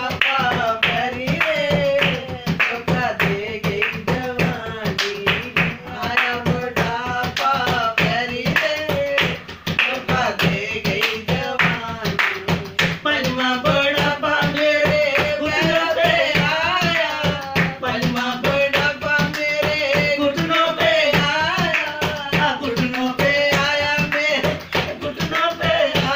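A woman singing a Hindi song to a fast, steady percussive beat.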